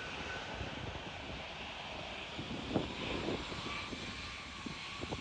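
Jet engines of a twin-engine Airbus narrowbody airliner landing: a steady rushing jet noise as it passes low over the runway with gear down. Wind buffets the microphone at times.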